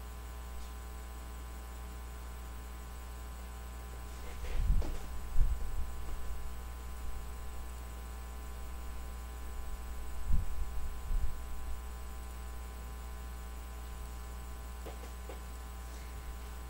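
Steady electrical mains hum, a low buzz with many even overtones, broken twice by clusters of low thumps and knocks, about four seconds in and again about ten seconds in.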